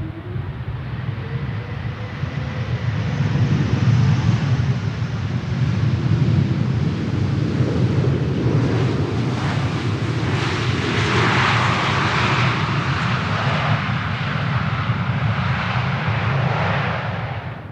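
Jet airliner's engines passing by: a steady low rumble that builds over the first few seconds, joined by a rushing hiss that grows louder in the second half. The sound drops away suddenly right at the end.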